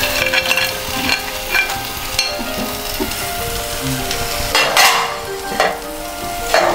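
Masala frying in a hot pan with a steady sizzle as raw crab pieces in their shells are tipped in. A few sharp knocks and scrapes are heard, the loudest about five seconds in, as the shells land and are scraped into the pan.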